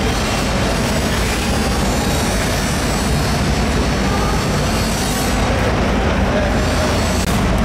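A steady low machine drone with a constant hiss.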